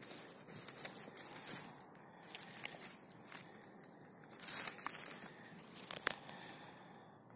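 Dry conifer needles and dead leaves rustling and crackling close to the microphone, with sharp clicks throughout, loudest about four and a half and six seconds in.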